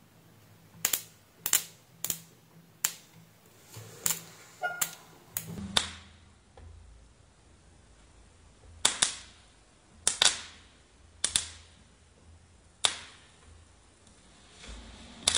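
A dozen or so sharp electrical snaps at irregular intervals, as a multimeter probe tip touching a capacitor on a car amplifier's 30 V supply rail makes and breaks contact and sparks: the sign of a bad solder joint at the capacitor.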